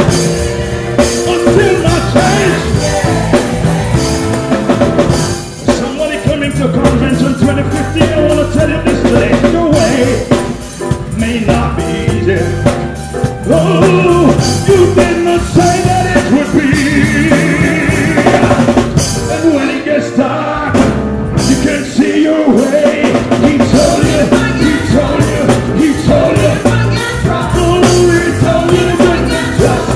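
Gospel choir singing loud and continuous with a lead singer on a handheld microphone, backed by a live drum kit and band.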